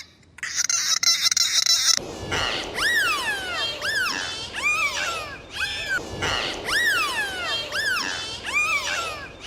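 A series of about ten high-pitched animal calls, each rising then falling in pitch, starting about two seconds in. Before them comes a brief gap, then a hissy, crackly sound.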